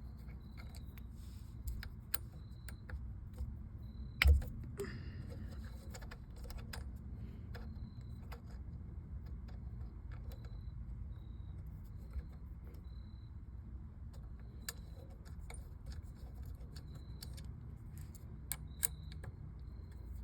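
Scattered small metallic clicks and clinks of hand tools and screws as a steering wheel is unbolted from its short hub, with one loud knock about four seconds in.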